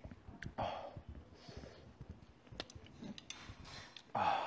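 Eating sounds up close: light clicks of chopsticks against a bowl, with short noisy rushes of slurping and chewing noodles. A louder rush of noise comes near the end.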